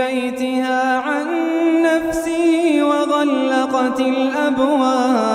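A reciter's voice chanting the Quran in melodic tajweed style, holding one long drawn-out note that steps up in pitch about a second in and slides back down near the end.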